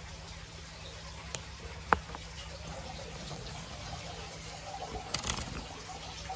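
Faint steady trickle of water in an aquaponics tank, with a single clear drip plinking into the water about two seconds in. A short cluster of light clicks and rustle follows a little after five seconds.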